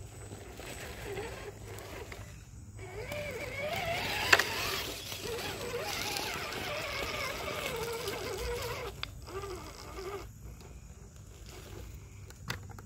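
Electric motor and drivetrain of a radio-controlled crawler truck whining as it climbs over leaves and sticks, the pitch rising and falling with the throttle for several seconds before dropping away. There is one sharp knock about four seconds in.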